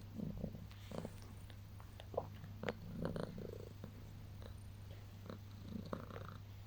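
Domestic cat purring close up, with soft rustles and small clicks scattered through.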